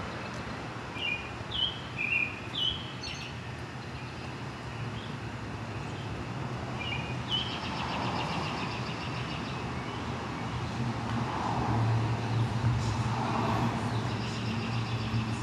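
The turbocharged four-cylinder engine of a Mini Cooper S John Cooper Works idling with a steady low hum, a little louder from about twelve seconds in. Birds chirp several times near the start.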